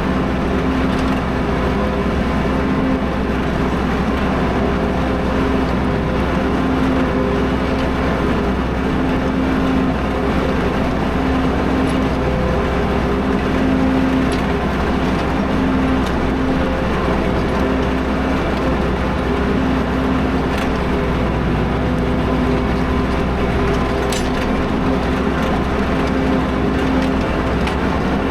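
Tractor engine running steadily under load while pulling a plough through the field.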